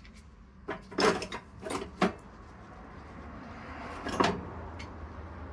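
Old metal hand tools being picked up, shuffled and set down on a bench: a handful of knocks and clinks, loudest about a second in and again about four seconds in.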